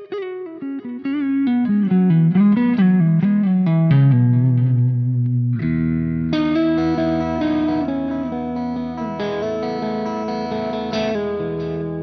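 Electric guitar played through a Soldano SLO-100 clone tube amplifier: a descending single-note run with vibrato, then a held low note, then a sustained chord that rings out from about five and a half seconds in.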